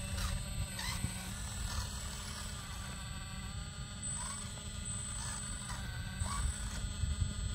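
Radio-controlled scale Volvo EC460B excavator working its boom and bucket: a steady mechanical whine with several pitches at once, bending briefly in pitch as the arm moves, over a low rumble.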